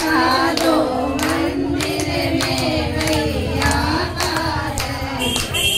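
Woman singing a Hindi devotional bhajan to the goddess Durga, a sustained, wavering melody, with hand clapping keeping a steady beat about twice a second.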